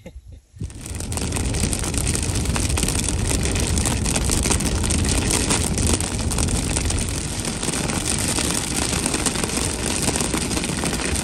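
Heavy rain beating on a car's windshield and roof as it drives, a dense steady hiss of many small drop impacts over road and engine rumble, heard from inside the car. It starts suddenly about half a second in.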